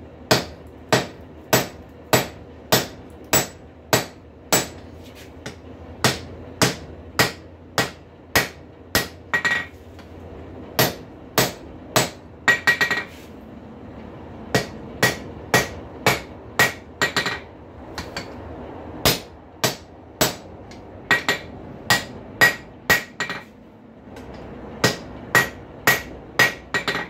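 Blacksmith's hand hammer striking the hot end of a mild-steel rail spike on an anvil, upsetting it: a steady run of sharp blows at about one and a half to two a second, with a few short pauses, some blows leaving a brief ring.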